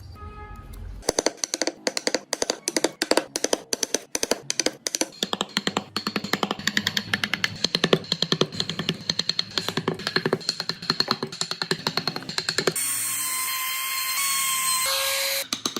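Background music built on a fast, even clicking beat. About three-quarters of the way through it changes to a sustained hissing sound with steady tones that step in pitch, then cuts off shortly before the end.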